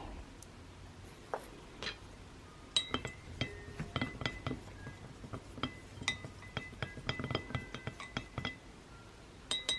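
A stirring stick clinking against a drinking glass many times in quick, irregular succession as liquid is stirred, each clink ringing briefly. The clinking starts about three seconds in and stops shortly before the end, with a few more clinks right at the end.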